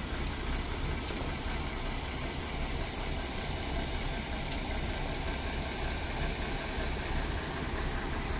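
Diesel engines of fire engines running steadily at low revs, with no siren.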